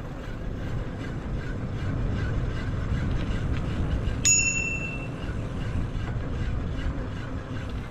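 Steady low rumble of wind and tyres as a bicycle rolls down a tarmac path, with a single ring of a bicycle bell about four seconds in that fades within a second, a warning to walkers on the path ahead.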